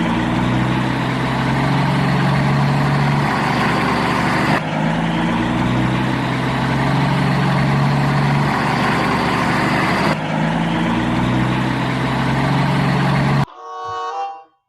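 Dump truck engine running steadily, a sound clip that repeats three times with abrupt joins. Near the end it cuts off and a short musical jingle starts.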